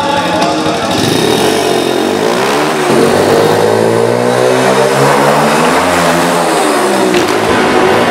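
Small pit bike engine revving as it is ridden, its pitch climbing and falling several times, then dropping back about seven seconds in.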